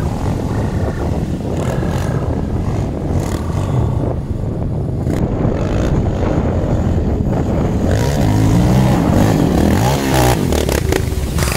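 Quad bike (ATV) engine running under way, with a steady low rumble that revs up and down several times in the second half.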